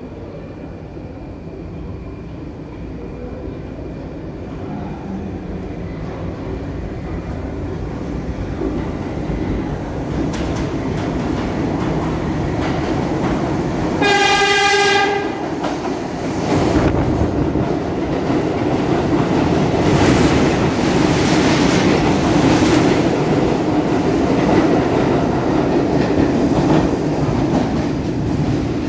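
A garbage train of R42 subway cars approaching through the tunnel, its rumble growing steadily louder. About halfway through it gives one horn blast of about a second. It then runs past along the platform with a loud, steady rumble and clatter of steel wheels on the rails.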